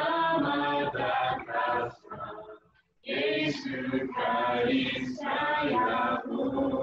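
A small group of voices singing a worship song from churches in Niger, unaccompanied, in held phrases with a short breath pause about three seconds in.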